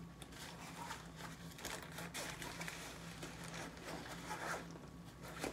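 Faint rustling and scraping of a nylon camera backpack being handled, with zippers being worked as its pockets are pulled open.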